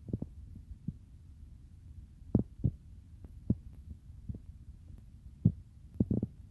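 Irregular dull knocks and taps on the work table while painting by hand with a brush, over a steady low hum. The loudest knocks come a little past two seconds in, about five and a half seconds in, and near the end.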